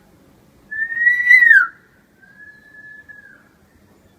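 Pet hill myna whistling: a loud, clear whistle about a second in that rises slightly, then drops away with a harsh edge, followed by a softer, level whistle.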